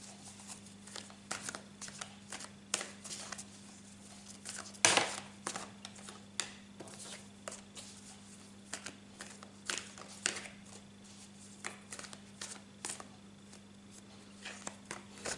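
Tarot cards being shuffled by hand: an irregular run of soft card clicks and snaps, with one louder snap about five seconds in.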